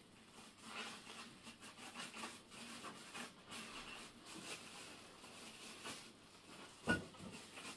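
Rustling and crinkling of packaging as a small speaker is pulled from its cardboard box and its wrapping is torn off, with one sharper knock about seven seconds in.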